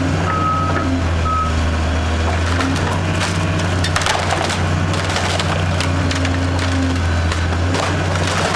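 A wooden house being torn down by heavy demolition machinery: timber cracks, snaps and splinters repeatedly from about three seconds in, over the machine's steady diesel engine. A backup alarm beeps during the first second and a half.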